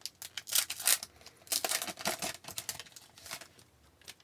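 A 2018-19 Upper Deck SP Authentic hockey card pack wrapper being torn open and crinkled by hand, in two main bursts of crackly tearing and rustling followed by a few smaller rustles.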